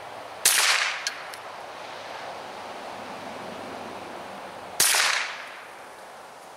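.22 LR rifle fired twice from the bench, about four seconds apart; each sharp crack trails off over about half a second, and two faint ticks follow the first shot.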